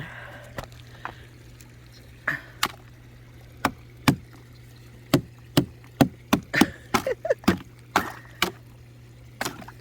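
A string of sharp, irregular crunching cracks, sparse at first and then coming about two a second for a few seconds, over a steady low hum.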